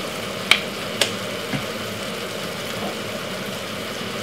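A steady rumbling hum of kitchen background noise, with two sharp clicks about half a second and a second in as ketchup is squeezed from a plastic bottle into the stew pot.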